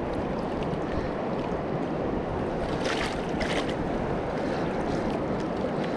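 River current rushing and swirling over rocks in the shallows, a steady wash of moving water. A few brief sharp splashy sounds come about three seconds in.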